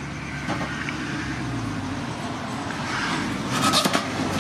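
Spring-steel lever cane cutter chopping sugarcane: a few sharp chops near the end as the blade crunches through the cane onto the wooden board, over a steady low motor rumble.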